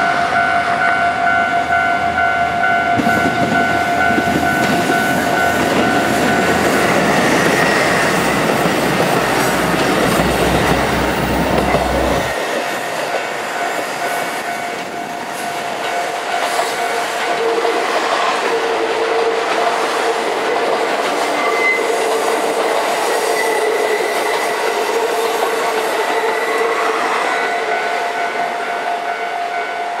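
Three-car set of KiHa 11 diesel railcars passing over a level crossing, engines running and wheels on the rails, while the crossing's warning bell rings steadily. The low rumble of the train stops abruptly about twelve seconds in, and the crossing bell keeps ringing.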